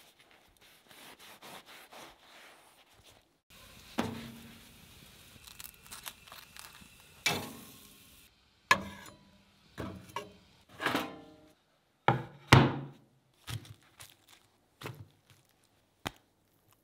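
A knife saws through a sesame burger bun in quick, faint strokes. Then beef patties sizzle on a grill with a couple of spatula knocks. After that come a series of soft thuds and knocks as a bun, tomato, onion and grilled patties are set down on a wooden cutting board.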